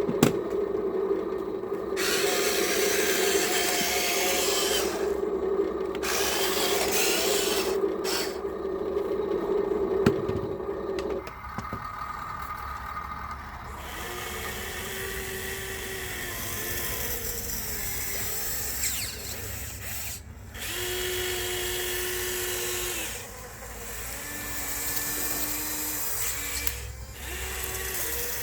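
Small electric drive motors and gearboxes of a radio-controlled Huina 1554 model bulldozer whining as it runs. The whine is steady for about the first eleven seconds, then comes in shorter bursts that start and stop at slightly different pitches as the model moves and works.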